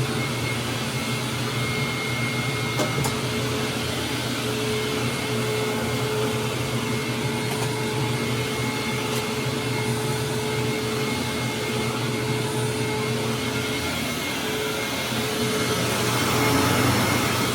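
Hoover WindTunnel Supreme upright vacuum cleaner running steadily: a constant motor hum and airflow noise with a faint high whine, getting a little louder near the end.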